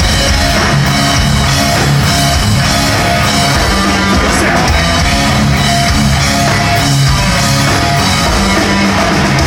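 Loud hard rock music with a full drum kit and electric guitar, playing continuously.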